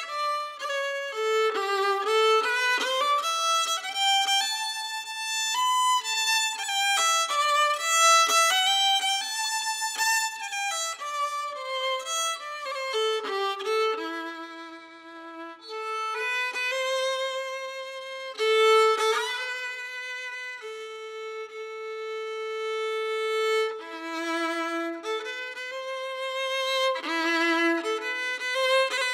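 Unaccompanied fiddle playing a slow Irish traditional tune. It moves through quick, ornamented notes and slides at first, then lingers on long held notes.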